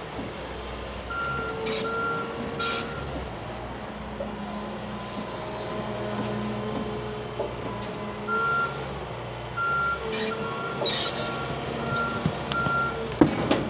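Large excavator's diesel engine running, with its movement alarm beeping in runs of short high beeps. A few short hisses come through, and several sharp loud cracks sound near the end.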